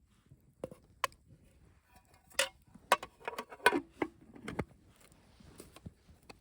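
Metal camp cookware and utensils clinking and knocking as they are handled, a quick run of about nine strikes, several ringing briefly.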